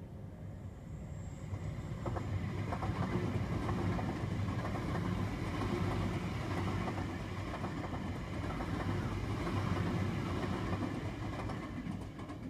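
Tokyu Den-en-toshi Line electric express train passing through a level crossing at speed: rumble of wheels on rail with a run of clacks over the rail joints, building about two seconds in and easing off near the end.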